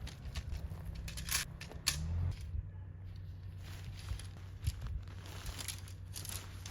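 Irregular crunching and crinkling noises over a low steady rumble.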